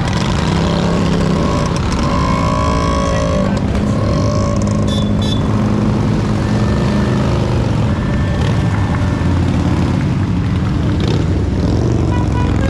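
Motorcycles and motor trikes riding past one after another in a procession, their engines running loudly and steadily with each machine's note rising and falling as it goes by.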